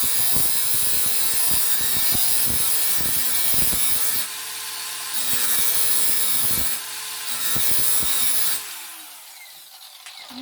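DeWalt DCG412N 18 V cordless angle grinder grinding the edge of a metal blade with a grinding disc: a steady high whine with harsh rasping that eases twice briefly. Near the end the trigger is released and the motor winds down with a falling whine.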